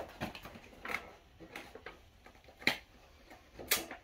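Plastic toy packaging and action-figure parts being handled: scattered light clicks and rustles, with sharper clicks a little after halfway and near the end.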